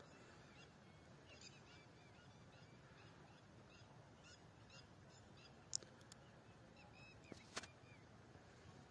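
Near silence, with faint scattered bird chirps and a couple of faint brief clicks.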